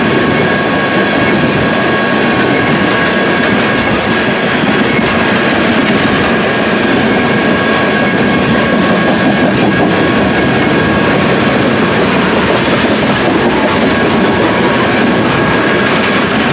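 Freight train of tank cars rolling past at steady speed: continuous loud wheel-on-rail rumble and clatter, with a thin steady high whine running through it.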